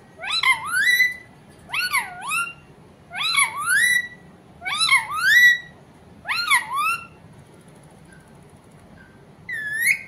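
Rose-ringed parakeet giving five loud, warbling call phrases, about one every one and a half seconds, each a run of quick up-and-down gliding notes. After a pause it gives one short rising note near the end.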